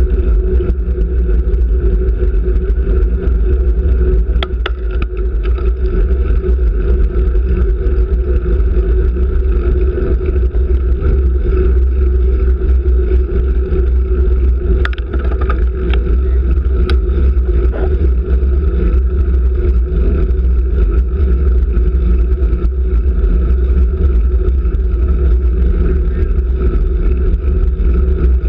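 Wind rushing over the microphone of a camera on a road bike's handlebars at race speed: a loud, steady low rumble, with a few sharp clicks or knocks here and there.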